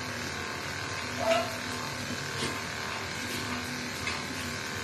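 Steady hum of a small electric motor, with a few light clicks and one short higher-pitched sound a little over a second in.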